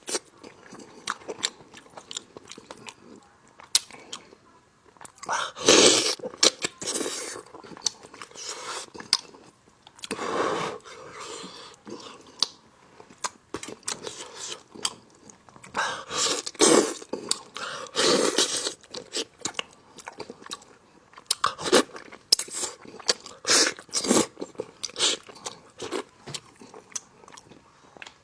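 Close-up eating sounds: biting and chewing braised spicy lamb meat off the bone, with irregular wet smacks and crunches coming in loud clusters.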